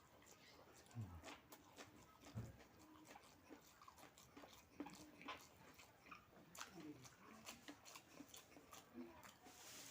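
Faint chewing and mouth sounds of a person eating, with scattered small clicks and smacks.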